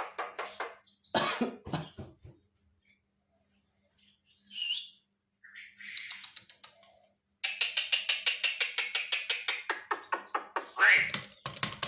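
Javan myna calling and mimicking: rapid chattering trains of about seven clicking notes a second, a loud cough-like burst about a second in, a few short chirps, and a rising whistle near the end.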